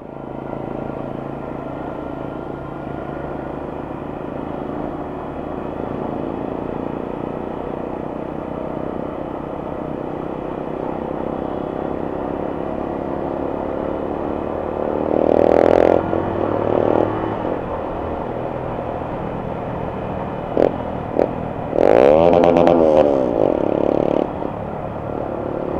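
A motorcycle engine running steadily as the bike rides along, heard from the rider's own position on the bike. Two louder spells of sound rise over it, about 15 seconds in and again about 22 seconds in.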